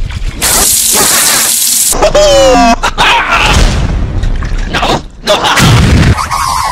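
Cartoon sound-effect mix: a loud hiss like spraying water, then a high cartoon voice sliding down in pitch, Minion chatter, and about five and a half seconds in an explosion boom.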